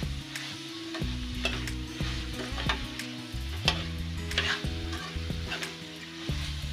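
Metal spatula stirring chickpeas through frying masala in a metal kadai: a steady sizzle with sharp scrapes and clacks of the spatula against the pan about twice a second.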